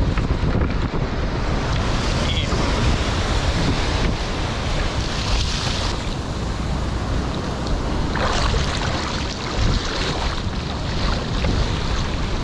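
Ocean surf and whitewater washing around a surfboard, with wind buffeting the camera microphone as a steady low rumble. A few sharper splashes come about eight seconds in.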